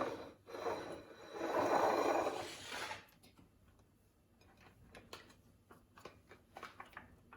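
Noisy rustling and scraping for about three seconds while ice cream is handled and put into a shaker cup, then a few light clicks and taps.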